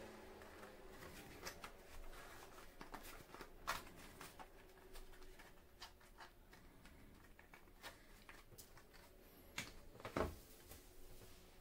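Light plastic clicks and rattles of an Oregon face shield being handled as its mesh visor and yellow brim are fitted onto the headband pivot, with two sharper knocks, one about four seconds in and one near the end.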